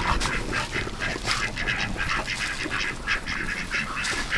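A flock of domestic ducks quacking, a steady run of short, rapid calls overlapping one another.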